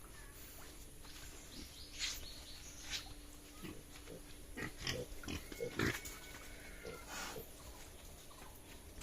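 Yorkshire-cross pigs giving short, scattered grunts and calls, busiest in the middle. A faint steady hum runs under the first two-thirds.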